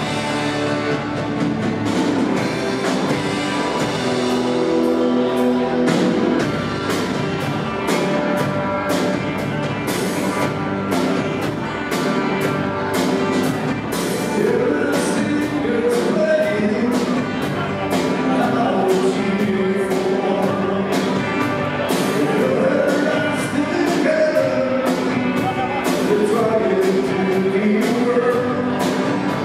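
Live rock band playing: drums, electric and acoustic guitars and a Roland VK-8 organ, with a man singing lead from about halfway through.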